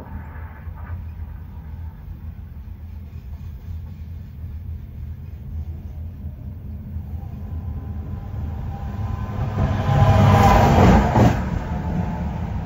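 Freight train cars rolling past: a steady low rumble of wheels on the rails, with a louder, fuller surge of noise for over a second about ten seconds in as the last cars go by.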